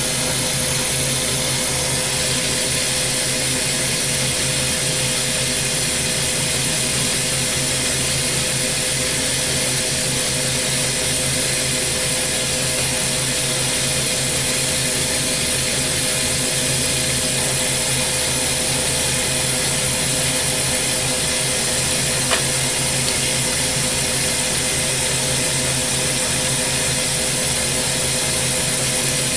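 Hydrogen-oxygen glassworking torch hissing steadily as its flame works a spinning quartz tube on a glass lathe, with a steady hum underneath. A single short click comes about three-quarters of the way through.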